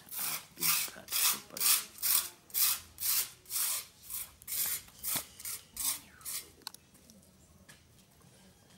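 A knife rasping in quick, evenly spaced strokes, about two a second, as it cuts through a chicken gizzard. The strokes stop about six and a half seconds in.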